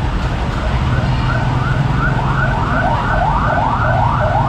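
An electronic siren in a fast yelp, its pitch sweeping about three times a second, starting about a second in, over a steady low hum.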